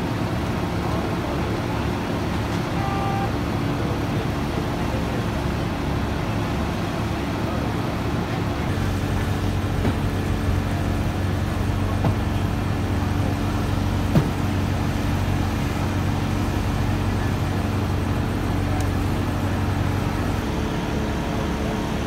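Diesel engine of a fire truck idling, a steady low hum, with one sharp knock about 14 seconds in.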